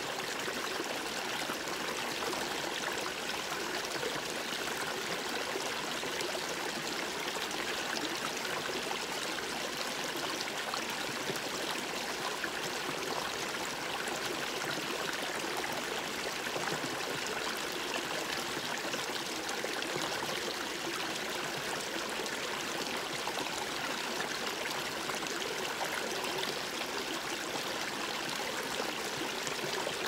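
Small mountain brook spilling in a little cascade over a rock step into a shallow pool: a steady babbling rush of water.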